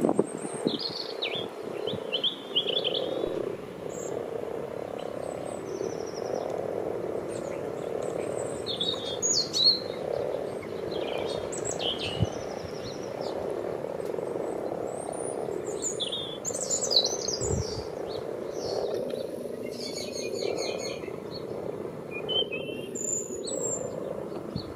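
Breeding chorus of common frogs: many males croaking at once in a steady, low, continuous chorus.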